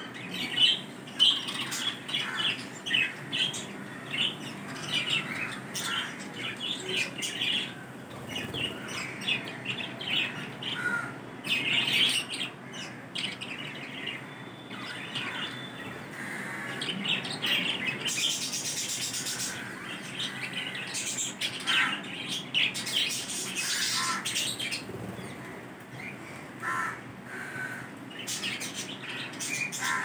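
Budgerigars chirping and chattering in many quick, short calls.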